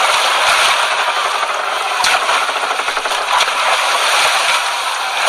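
Radio-drama sound effects of a ship in a hurricane: a dense, steady rushing noise with rapid crackling and rattling, and a sharp knock about two seconds in.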